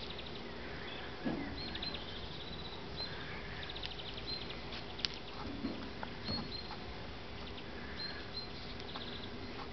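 Labrador puppies sniffing, snuffling and tugging at a dead pheasant on grass, with a few short low grunts and a sharp click about five seconds in. Short, rapid high chirps repeat every second or two in the background.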